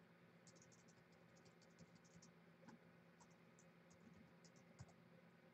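Near silence with faint, quick keyboard typing, a run of clicks in the first two seconds and then scattered clicks.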